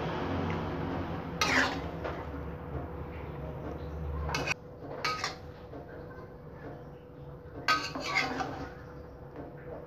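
A metal ladle clinking and scraping against a wok and a bowl as stir-fried vegetables in sauce are scooped out, in several separate clinks. A low steady hum underneath stops abruptly about four and a half seconds in.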